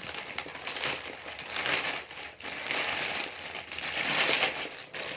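Plastic packaging crinkling and rustling in uneven bursts as small parcel items are handled and unwrapped, loudest from about the middle to near the end.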